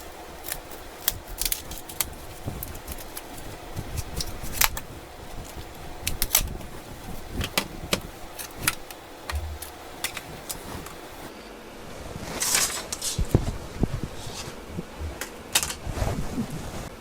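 Plastic opening tool prying round the edge of a Samsung Galaxy A32's back cover, the clips unsnapping in a series of sharp, irregular plastic clicks and light clatter.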